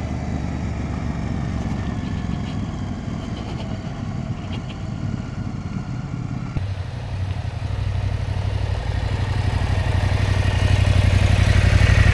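KTM 890 Adventure R's parallel-twin engine running at low speed on a gravel road, heard from on the bike. About halfway the sound changes to the bike approaching from outside, its engine note growing steadily louder as it rides up close.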